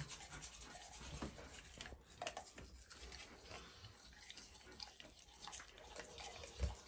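Faint scrubbing and scraping of a toothbrush on a dog's teeth, with small wet clicks from the dog's mouth.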